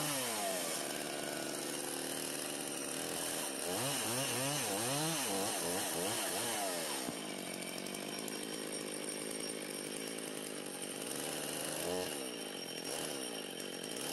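Gas chainsaw revving up and down in quick surges, then running steadily for about five seconds as it cuts into the top of a wooden post, with another short rev near the end.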